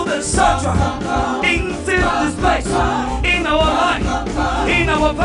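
Live gospel praise-and-worship music: a choir singing with a band, over a continuous low bass.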